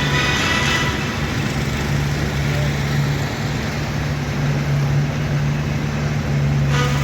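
Road traffic noise: a steady low engine hum over an even rush of passing vehicles.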